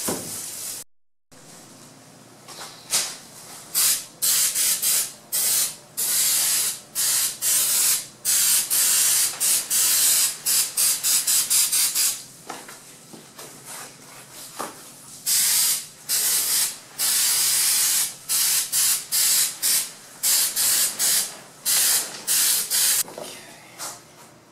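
Aerosol can of spray adhesive sprayed in many repeated hissing bursts, some brief and some held for a second or more.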